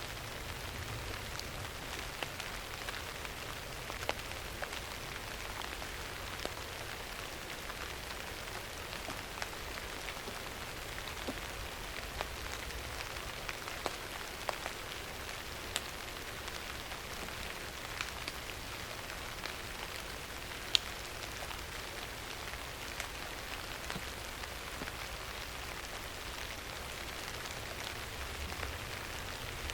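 Steady rain falling, an even hiss with many separate drops ticking and pattering on a hard surface, one sharper drop hit about two-thirds of the way through.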